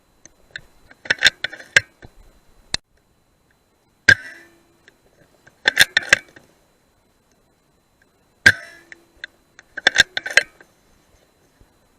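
Moderated rifle shots fired at rats, two single sharp shots about four and a half seconds apart, each with a short decay. Between them come clusters of quick sharp clicks.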